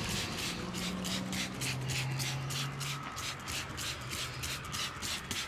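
Hands rubbing briskly over hair and scalp in a head massage, a steady rhythm of about four strokes a second.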